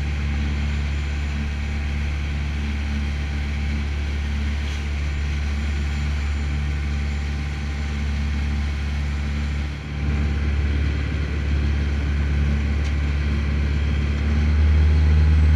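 Fishing boat's engine running with a steady low drone, dipping briefly about ten seconds in.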